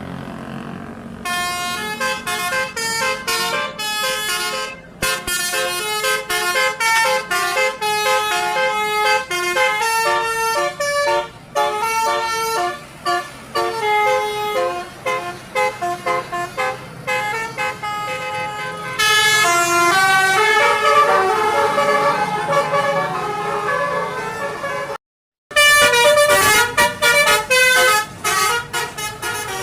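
Bus basuri (telolet) musical air horn playing fast melodic runs of short notes that hop between pitches. It stops dead for a moment about 25 seconds in, then starts again.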